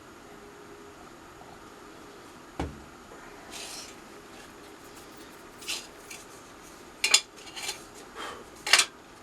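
Small hard objects being handled on a workbench: one sharp knock, then a run of light clicks and clatters, the loudest two close together about seven seconds in and a last one near the end.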